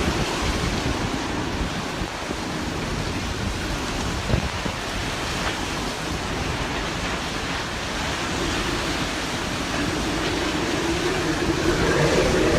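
Hurricane-force wind from Hurricane Michael's eyewall blowing steadily and buffeting the microphone with a rough low rumble, swelling louder near the end as a gust comes in.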